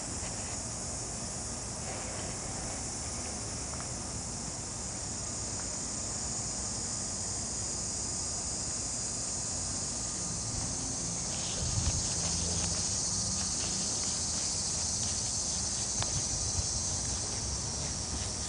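A steady high-pitched chorus of insects. Past the middle it is joined by light rustling and soft knocks as a puppy tussles with a plush toy on the grass.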